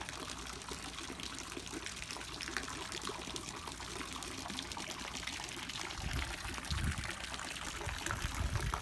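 Garden fountain jet trickling and splashing steadily into a lily pond. Low rumbles join in from about six seconds in.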